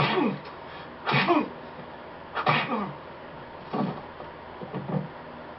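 Film fistfight: a man cries out in pain five times as blows land, short grunts about a second apart, each dropping in pitch.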